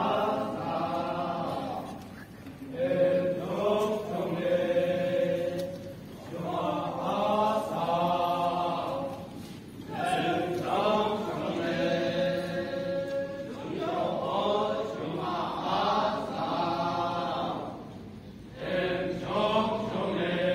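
A group of voices chanting a traditional song in unison. It comes in phrases of three to four seconds, with short pauses between them.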